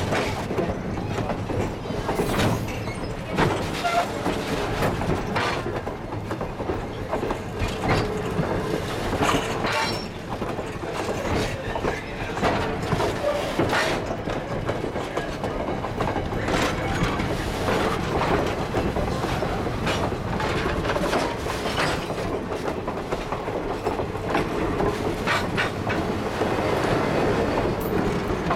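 Railroad passenger coaches rolling past close by: a steady rumble of steel wheels on the rails, broken by irregular clicks and clacks as the wheels cross rail joints.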